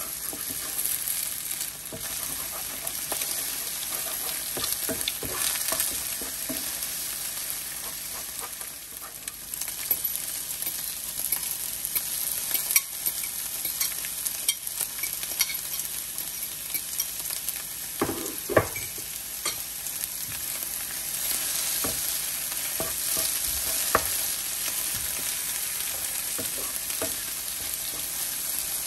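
Eggs sizzling in a nonstick frying pan as a wooden spatula stirs and scrapes them, with scattered clicks and knocks of the spatula against the pan. About halfway through, sliced pickled cucumbers are tipped in from a plate and stir-fried with the eggs, the sizzle carrying on steadily.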